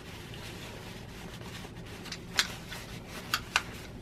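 Paper towel rubbing over the parts of a disassembled rotary cutter, with three sharp clicks of small plastic and metal parts: one about halfway through and two in quick succession near the end.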